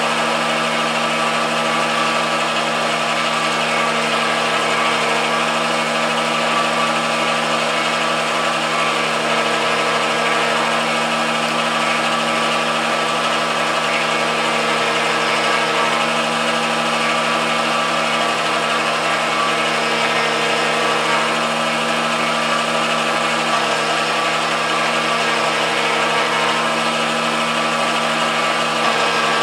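MDF rose engine lathe running a motor-driven guilloche cut: a steady machine whine made of several fixed tones, with a slow swell and fade every five seconds or so as the cut repeats.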